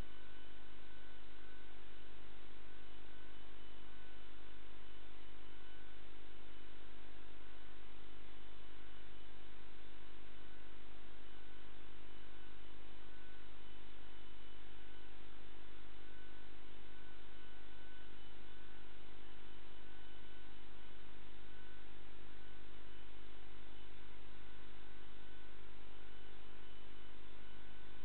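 Steady electrical hum with a layer of hiss, unchanging throughout, with no distinct events such as ball strikes.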